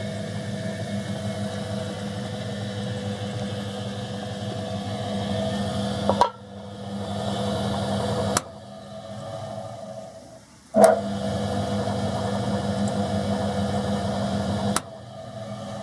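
The three-phase 200 V electric motor drive of a mochi and dango machine with a granite mortar runs with a steady hum. It is switched off and on with sharp clicks of its push buttons: the hum drops away after a click about six seconds in, starts again at full strength with a loud click around eleven seconds, and is cut off once more near the end, fading as it winds down.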